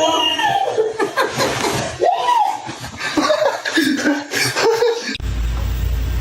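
People laughing, in quick, bouncing bursts for about five seconds, then a sudden change to a steady low hum.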